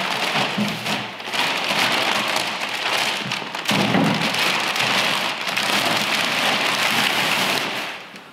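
Clear plastic wrapping crinkling and rustling as it is pulled off a stainless steel gas-bottle holder, with a brief lull about halfway and dying away near the end.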